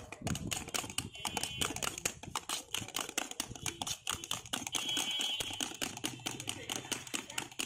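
Metal spoon clinking rapidly against the inside of a stainless steel cup while stirring aloe vera pulp, several irregular strikes a second.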